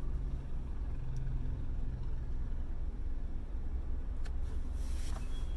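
Steady low rumble of a car's cabin, with a man's soft breath as he draws on a cigarette and exhales the smoke after about four seconds.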